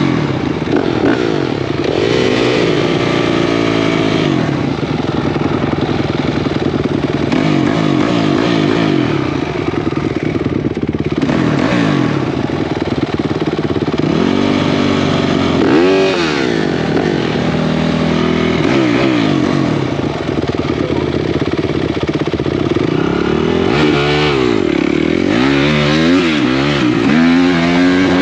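Off-road racing engines of a Honda 250X and a Kawasaki 450R, revved hard and backed off again and again as they race. The pitch rises and falls every second or two, with two engine notes at times overlapping.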